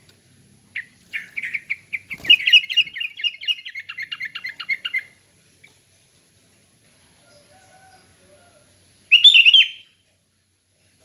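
Sooty-headed bulbul (kutilang) singing: a run of quick, bubbling notes lasting about four seconds, then a second short burst of song near the end. A single knock sounds about two seconds in.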